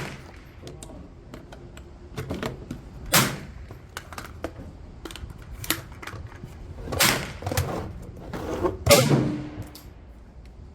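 Metallic clicks and clacks of handling a 450 Bushmaster AR rifle and its magazine as cartridges are pressed in, with a few louder clacks about three, seven and nine seconds in.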